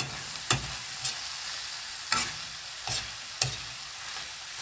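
Oyster mushrooms and sliced finger chilies sizzling steadily in a wok while a metal spatula stirs them, knocking and scraping against the pan several times.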